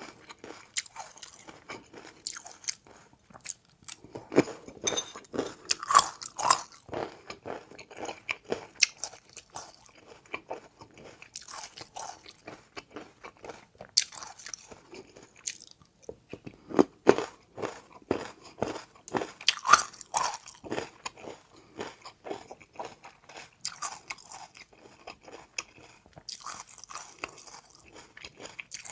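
Close-miked chewing of tobiko (flying-fish roe) and a crunchy seafood topping: dense runs of small, sharp crunches, with two louder spells of biting.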